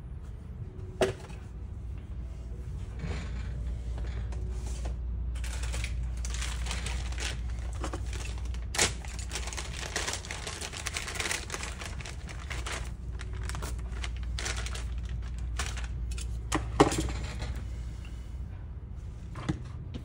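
Handling noise as foam-tipped cleaning swabs are fetched and laid out on a rubber repair mat: a long stretch of packaging rustling in the middle, with a few sharp clicks and knocks of small objects being set down. A low steady hum runs underneath.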